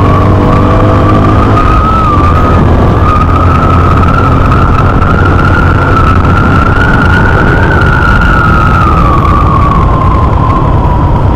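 Motorcycle ride with loud, steady wind rush on the microphone. A whine slowly rises in pitch, then falls back near the end.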